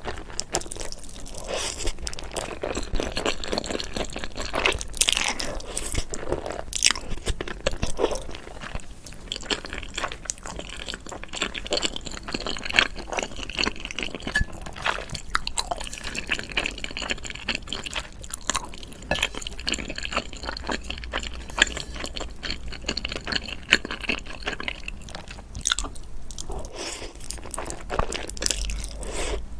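A person chewing and crunching food close to the microphone, with a constant run of short crackly bites and chews.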